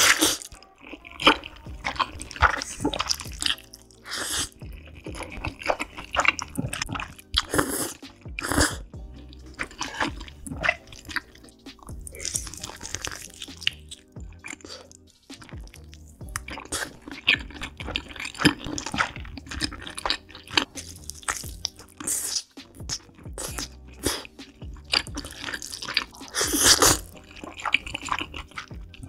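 Close-miked mukbang eating: noodles slurped and chewed with many wet mouth clicks and smacks, and bites into a piece of chicken, over background music.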